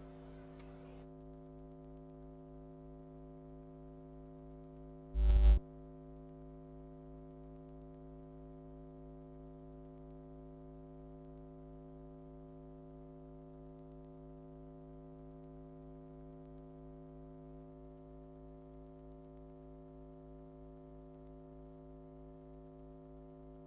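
Steady synthesizer drone: a held chord that does not change, with one brief loud hit about five seconds in.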